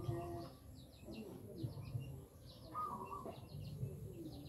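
Small birds chirping in quick, short calls again and again, over a low steady rumble.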